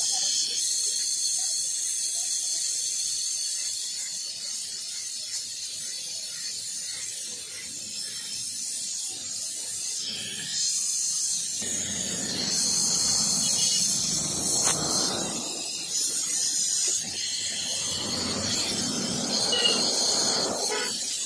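Gas welding torch hissing steadily while its flame works filler rod into an aluminium pipe joint. A lower rush of noise swells twice in the second half.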